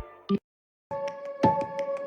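Background music: a short silent gap, then about a second in a light, chiming track starts, with bell-like mallet notes struck at a steady pace.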